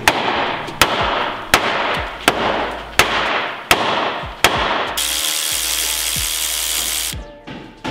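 Six hammer blows on the front fender and wheel-arch lip of a Toyota 4Runner, evenly spaced about three-quarters of a second apart, each ringing briefly: the metal is being beaten back so that 35-inch tyres will clear. About five seconds in, a power tool starts up and runs steadily for about two seconds.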